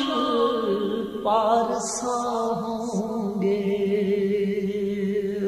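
A man's voice chanting a devotional Urdu naat, drawing out long, wavering held notes over a steady low vocal drone.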